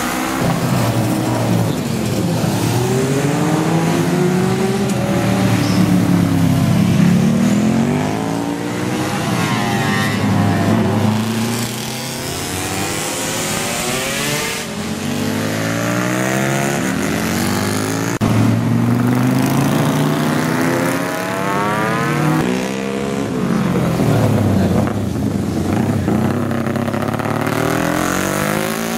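Vintage racing motorcycles of over 350 cc from before 1970 racing past one after another. Their engines rev hard and repeatedly rise and fall in pitch through gear changes and as each bike passes.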